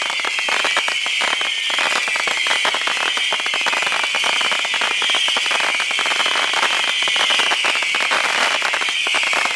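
A steady, high-pitched buzzing drone that sags in pitch every couple of seconds, laced with fast irregular clicks.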